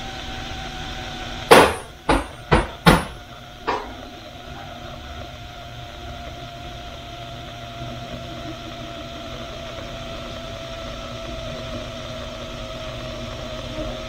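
Instant Pot electric pressure cooker venting steam through its release valve in a quick release, a steady hiss with a faint whistle that slowly lowers in pitch as the pressure drops. About a second and a half in come five sharp knocks in quick succession, the loudest sounds here.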